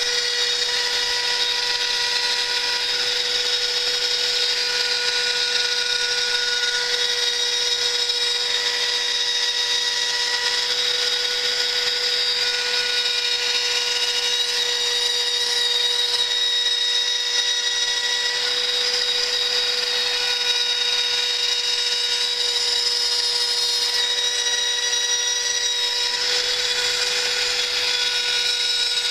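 Hobby CNC router's spindle and small end mill milling slots in aluminium plate: a steady whine with higher tones that come and go as the cutter moves through the metal.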